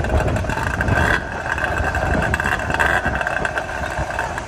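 Hidea 15 hp outboard motor running steadily at low speed, over the rumble of surf breaking on a stony beach.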